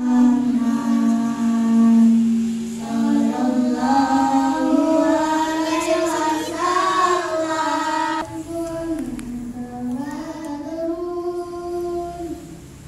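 Boys' voices singing an Islamic devotional song into microphones. It opens on one long held note of about three seconds, then moves to a higher, wavering melody.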